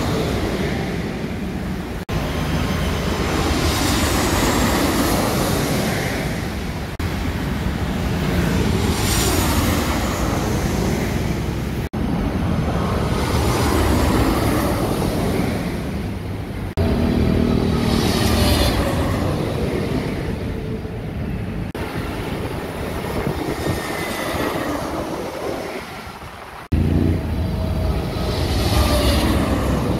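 Twin-engine wide-body jet airliners on final approach passing low overhead one after another. Each pass is a loud engine roar with a whine that falls in pitch as the plane goes by, over steady road traffic. The sound breaks off abruptly several times between passes.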